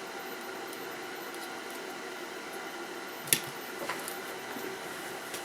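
Steady background hiss with one sharp click about three seconds in and a fainter tap just after, from small tools being handled while working on a circuit board.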